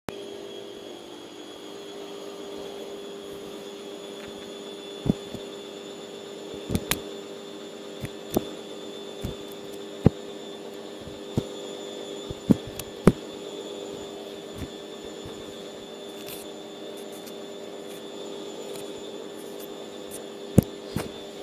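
Washing machine running with a steady hum, overlaid by about a dozen sharp, irregularly spaced taps and clicks in the second half.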